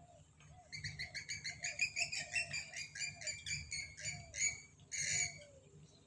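A bird calling in a rapid series of high, chattering notes, about five a second, starting about a second in and ending with a louder call near the end. Faint, lower, repeated calls go on underneath.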